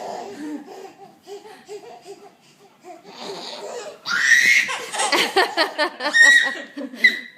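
Baby laughing: quiet chuckles at first, then from about four seconds in a loud run of high-pitched belly laughs and squeals.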